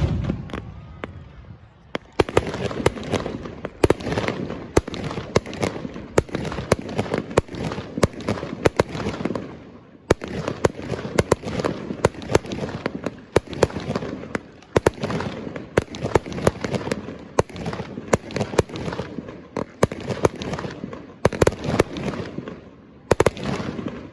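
Fireworks display: a continuous barrage of sharp bangs and crackling, with short lulls about two seconds in and again about ten seconds in, stopping near the end.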